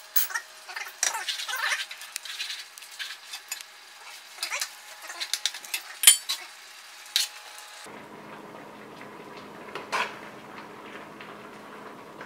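Metal serving utensils clinking and scraping against pots, pans and a plate while biscuits are plated and thick gravy is ladled over them. There is a run of short clinks and scrapes, the sharpest about six seconds in, then only a few.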